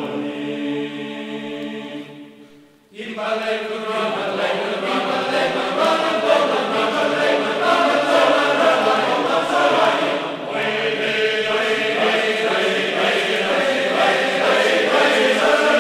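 A group of voices singing together, like a choir or chant. The singing fades almost out about three seconds in, then starts again and runs on steadily.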